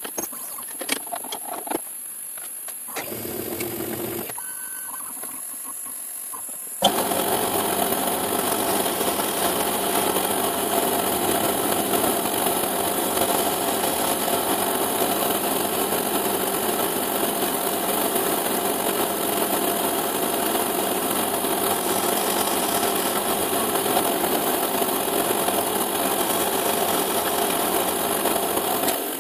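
A few clicks and knocks as a cutter is fitted in the milling machine's drill chuck, then from about seven seconds the CNC milling machine runs steadily, drilling holes in a 5 mm perspex sheet, with a hiss from its stepper motors over the spindle noise.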